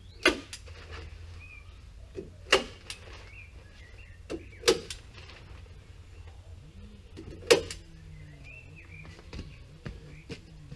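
Hand staple gun fixing a sheet of membrane to the timber porch framing: four sharp single snaps about two seconds apart, with a few lighter taps between them.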